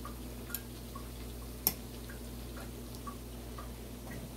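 Festival dough frying in shallow oil in a skillet: faint, irregular crackles and pops over a low steady hum, with a sharp click about a second and a half in.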